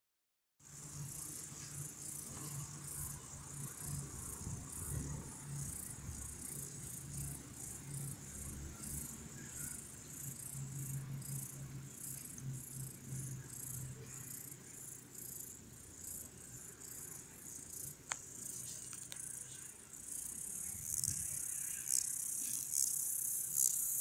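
Grasshoppers chirping in pulses about two a second, growing louder and denser near the end. A low steady hum runs underneath for most of the time and fades before the end.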